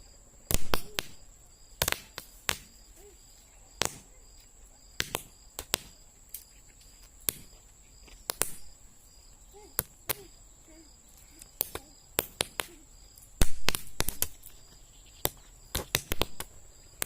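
Paper roll caps going off one after another in an irregular string of sharp pops, some single and some in quick clusters. The loudest bursts come about half a second in and again about two-thirds of the way through.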